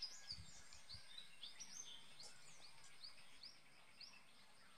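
Faint birdsong: a continuous string of short, quick chirps, two or three a second.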